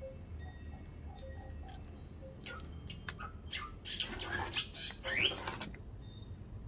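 A small knife and fingers working a sprouting coconut's leaf sheath and fibrous husk: scattered clicks and scrapes, then a louder burst of rustling, scraping and tearing about four seconds in that ends in a short rising squeak.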